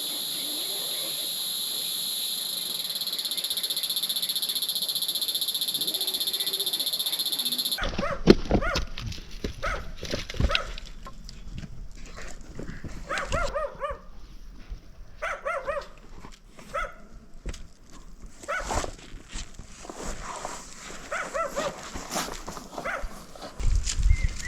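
A steady high-pitched drone that cuts off suddenly about eight seconds in, followed by repeated short animal calls.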